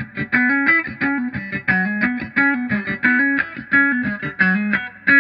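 Electric guitar played through a Vox 846 Hand Wired wah pedal: a looped riff of short plucked notes that repeats about every second and a half.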